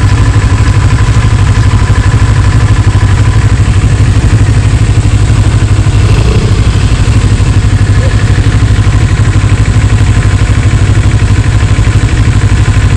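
CFMoto 400NK motorcycle's parallel-twin engine running steadily at low revs while the bike is ridden slowly.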